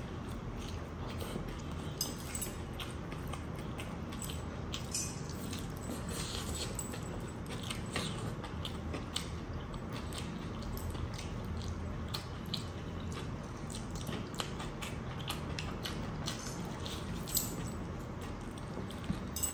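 Close-up eating sounds of crispy spinach-coated chicken drumsticks: wet chewing, biting and lip smacks, heard as many scattered short clicks over a steady low background noise.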